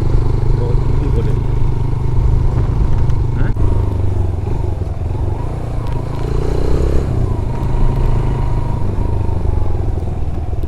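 Motorcycle engine running steadily while riding, with a constant low rumble and a thin steady whine.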